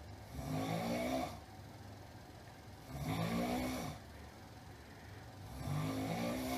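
A sleeper snoring loudly: three long snores, each about a second, coming about every two and a half seconds, with quiet breathing between them.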